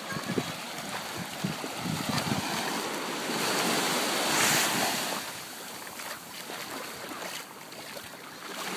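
Small surf breaking and washing up a sandy beach, swelling to its loudest about four seconds in, with wind buffeting the microphone in the first couple of seconds.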